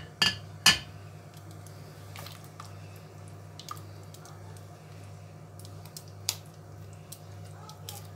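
Metal spoon clicking and tapping against a pot and spice bowls as spices are added to the kadhi: two sharp knocks under a second in, another about six seconds in, and lighter ticks between, over a steady low hum.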